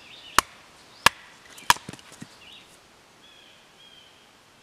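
Three sharp chopping strikes on wood, evenly spaced about two-thirds of a second apart, in the first two seconds. Faint bird chirps follow.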